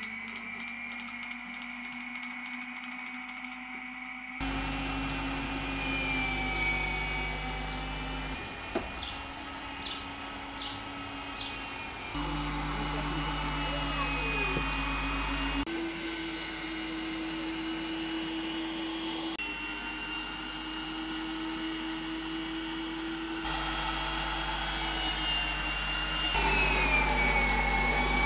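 Electric meat grinder's motor running with a steady whine, its pitch shifting and dipping as food is forced through the auger and cutting plate.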